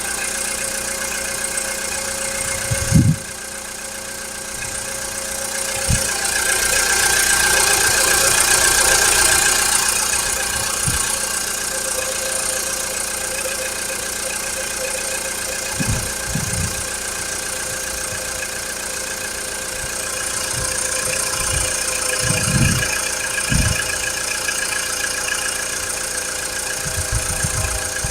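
A 2012 VW Polo Sedan's four-cylinder petrol engine idling cold, with the knock it makes before it warms up. A few dull thumps come through, the loudest about three seconds in, and the engine gets louder for a few seconds before settling back.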